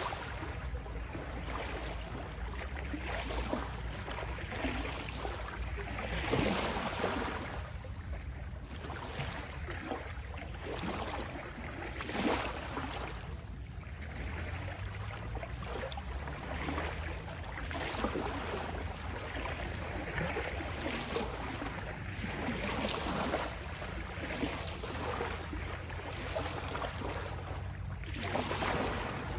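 Small sea waves lapping and rippling at the shore, each wash swelling and fading every few seconds over a steady low rumble.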